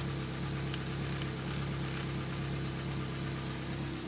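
Ford Focus 1.8 Zetec four-cylinder petrol engine idling steadily, heard close up in the open engine bay.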